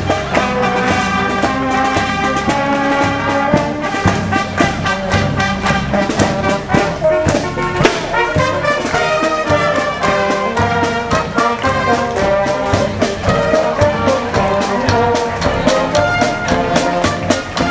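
Brass band music with brass instruments playing a tune over a steady drum beat.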